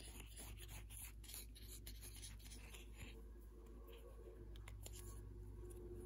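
Faint scratching and rustling of hands handling embroidery floss, a card floss bobbin and cross-stitch fabric, with a quick run of small clicks and scrapes in the first three seconds and fewer after.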